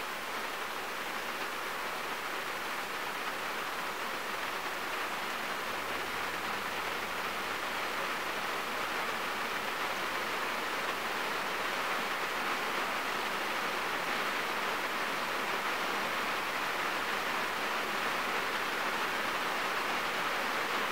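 Steady rain falling on a car, heard from inside the cabin as an even hiss of drops on the roof and glass, growing slightly heavier over the stretch.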